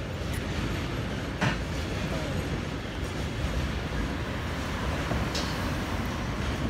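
Intermodal freight train of wagons carrying truck semi-trailers rolling past, a steady rumble of wheels on rails, with a sharp click about one and a half seconds in.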